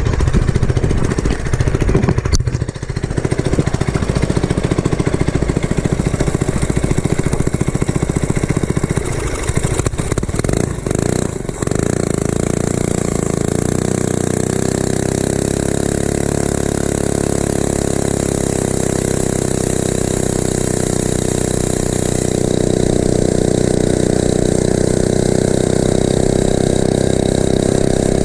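Mini bike's small single-cylinder four-stroke engine, with its governor removed, running under way. For the first ten seconds or so it is rough and mixed with wind noise on the microphone. After a brief dip about eleven seconds in it settles into a steady drone, which gets a little louder near the end.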